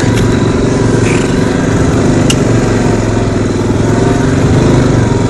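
CF Moto 500 4x4 quad's single-cylinder engine running steadily while riding, a little louder near the end.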